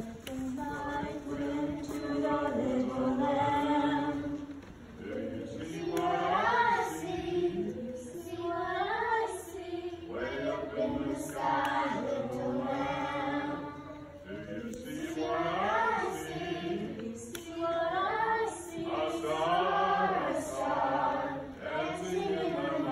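A group of children singing together as a choir, in phrases with short breaks between them.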